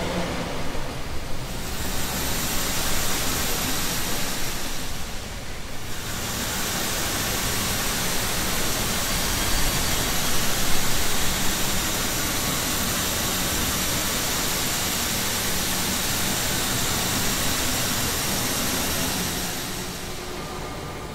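A sound slowed down many times over with Paulstretch, smeared into a steady rushing wash of noise with faint held tones, dipping briefly twice in the first few seconds and fading near the end. The original source cannot be recognised.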